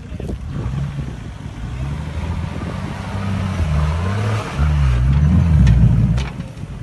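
Diesel engine of a lifted 4x4 on oversized tyres revving hard under load as it climbs a steep dirt bank. The revs build and it is loudest about five to six seconds in, then it eases off sharply near the end.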